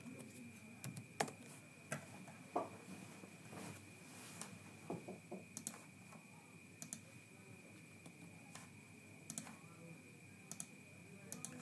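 Scattered clicks of a computer mouse and keyboard, several in quick pairs, over a faint steady high-pitched tone and room hiss.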